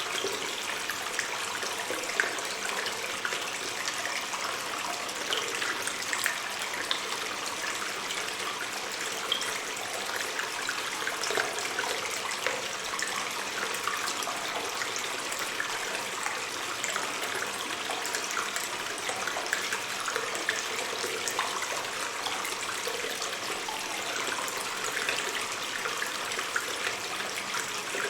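Water stream running and trickling in a cave: a steady wash of flowing water dotted with small splashes and drips.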